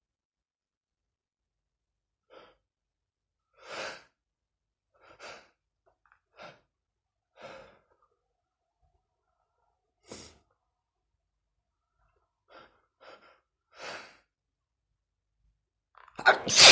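A man's short, noisy breaths come every second or two as he builds up to a sneeze. A loud sneeze breaks out right at the end.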